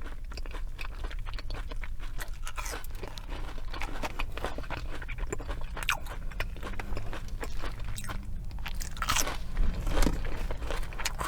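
A person biting and chewing crispy fried fast food close to the microphone: a run of crunches throughout, the loudest about nine to ten seconds in.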